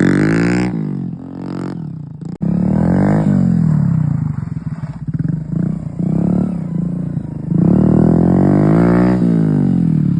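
Motorcycle engine being revved again and again, its pitch climbing and dropping back with each blip, with a longer held rev about eight seconds in.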